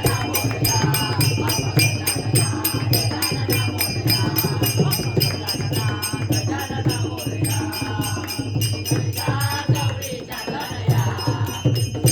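A group singing a devotional Marathi aarti to Lord Ganesh over a steady, quick beat of small metal percussion, about four strokes a second.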